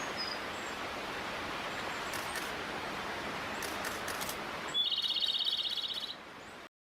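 Outdoor ambience: a steady hiss with a couple of faint bird chirps, then a loud, rapid, high-pitched trill lasting just over a second near the end.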